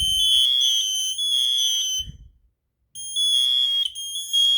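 Voice-and-tone smoke alarm under test, model 2070-VASR, sounding its temporal-three fire alarm pattern: loud, shrill beeps in threes. One group ends about two seconds in, then after a pause of under a second the next group of three begins.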